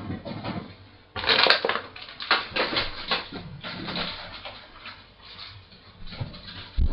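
Crinkling and rustling of food wrapping being handled, a run of short irregular crackles, with a dull thump near the end.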